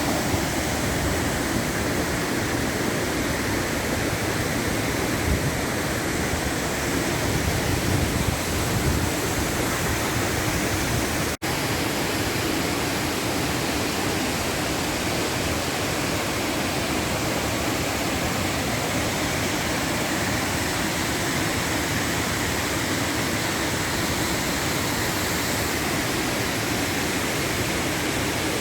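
Natural running water rushing steadily, like a stream or small waterfall, with a momentary break about eleven seconds in.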